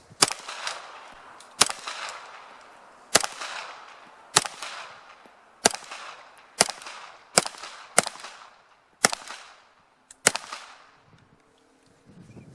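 Pistol fired ten single shots at an unhurried pace, roughly a second apart, each sharp crack followed by a short ringing echo.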